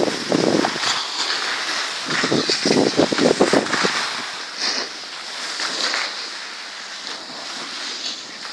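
Snowboard edges scraping over packed snow in rough bursts, loudest about two to three and a half seconds in and easing off after about six seconds, with wind rushing over the microphone.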